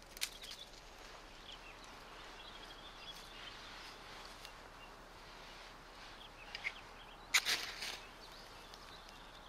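Quiet outdoor background with faint high chirps, broken by a few short rustling or scraping sounds; the loudest comes about seven and a half seconds in.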